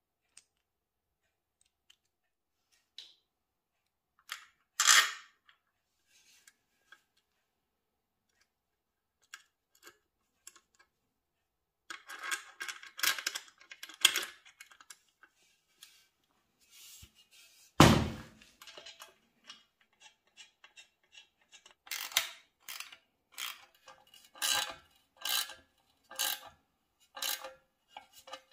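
Small steel nuts, studs and washers clinking against a steel exhaust flange as it is put together by hand, with one heavy thud about two-thirds of the way through. Near the end a wrench tightens a nut on the flange in a run of about eight evenly spaced clicks.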